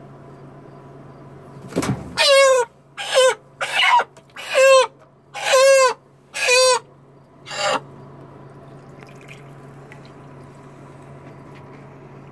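A chicken squawking in distress, about six loud, harsh calls in quick succession, as a Burmese python seizes and coils around it. A sudden thump comes just before the first squawk.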